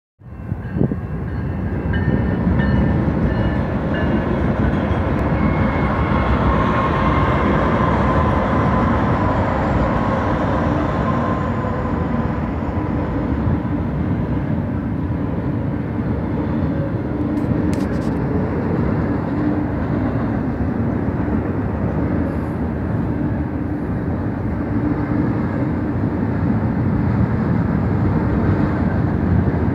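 Double-stack intermodal freight train passing close by: a loud, steady rumble of wheels rolling on the rails.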